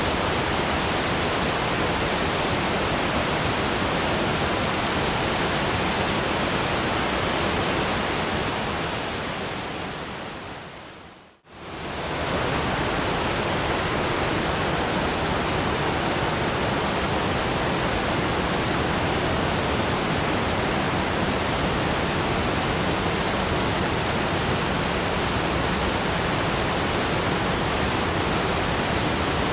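Steady, even rushing noise spread across all pitches. It fades gradually to silence about eleven seconds in, then swells straight back to full level within about a second.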